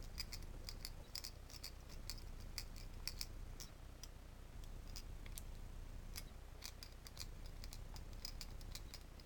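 Small precision screwdriver working the screws out of the plastic back of a GU10 LED lamp: faint, irregular little clicks and scrapes of the metal tip on the screw heads.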